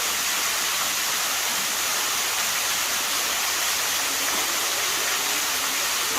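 Waterfall water rushing in a steady, unbroken stream.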